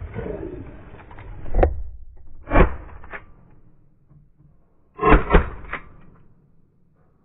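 Waterfowl hunters' shotguns firing at birds flying over the decoys. There are single shots about one and a half and two and a half seconds in, then several shots in quick succession about five seconds in.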